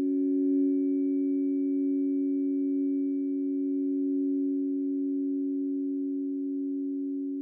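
Two tuning forks tuned a major third apart, C and E, ringing together as steady pure tones. The sound swells about half a second in and then fades slowly.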